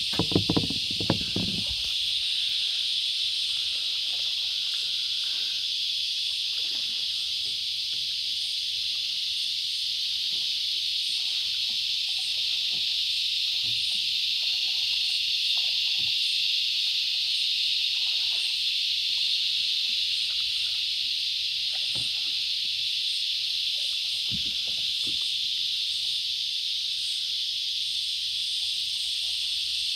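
Steady high-pitched drone of an insect chorus in the riverside bush, with faint splashes from the kayak paddles now and then.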